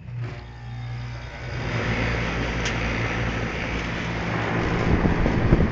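Trane 2.5-ton gas pack package unit starting up after long neglect. A sudden steady electric hum comes in, then the rush of air from its fan builds over about two seconds and runs on steadily.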